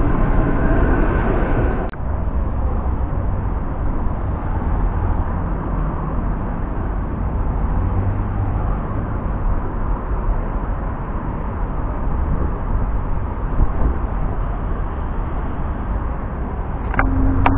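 Croydon tram running past at the stop for the first two seconds, then steady town-centre road traffic: cars passing over a junction, a continuous low rumble. It grows louder near the end with a steady low engine hum.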